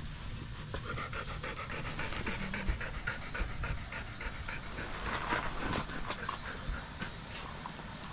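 Black retriever panting rapidly and steadily, several breaths a second, heaviest about five seconds in.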